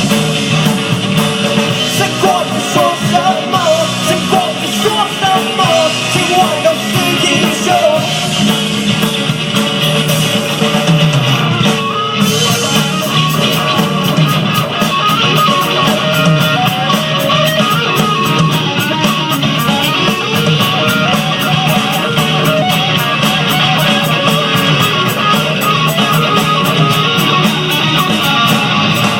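Rock band playing a song with electric guitars and drums. About twelve seconds in, the drums settle into a fast, even beat on the cymbals.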